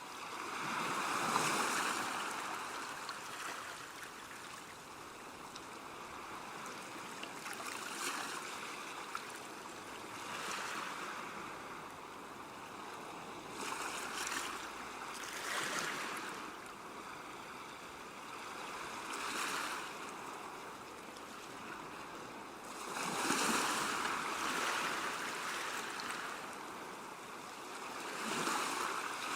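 Sea waves breaking and washing up a beach: a steady rush of surf that swells and fades every few seconds, with the strongest surge a little past the middle.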